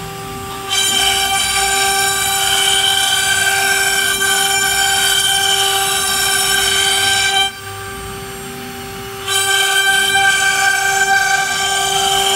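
CNC router spindle whining at a steady pitch while its engraving bit cuts letters into a wooden board, with a shrill, many-toned cutting sound over the whine. The cutting sound drops away twice, near the start and from about seven and a half to nine seconds in, leaving the quieter spindle whine.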